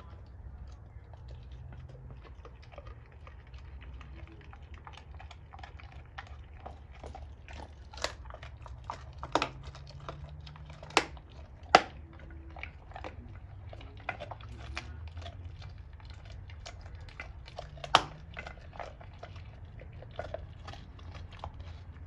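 A Doberman chewing a raw pork bone: a steady run of small wet clicks and crunches as its back teeth work the meat and bone, broken by several loud sharp cracks of teeth on bone.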